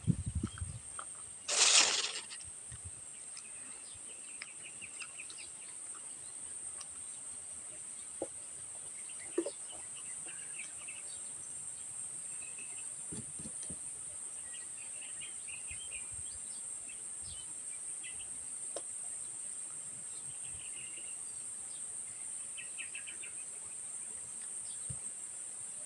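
Steady high-pitched drone of crickets, with scattered faint bird chirps and a few soft clicks. A short, loud rustle or crunch comes about two seconds in.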